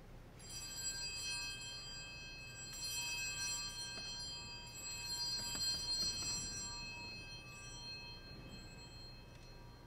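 Altar bells rung three times at the elevation of the chalice after the consecration, a cluster of high ringing tones that fades out over the last few seconds.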